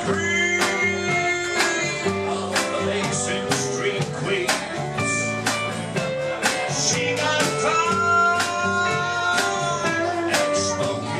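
Country band playing live, with held melody notes over a steady drum beat.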